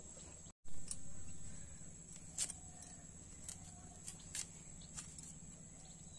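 Taro (kochu) corms being scraped and peeled against a curved iron blade: a few short, soft scrapes, irregularly spaced. Near the start the sound cuts out for a moment, then there is a brief louder rustle.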